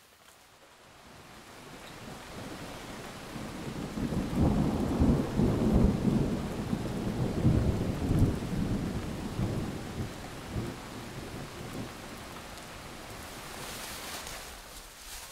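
Heavy rain pouring, with a long rolling rumble of thunder. It swells up out of near silence, the rumble is loudest in the middle, then the rain goes on more steadily and fades away near the end.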